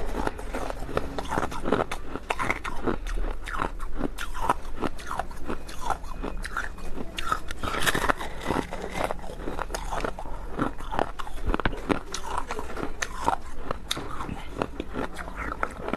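Close-miked biting and chewing of green-coloured ice, a dense irregular run of sharp crunching cracks.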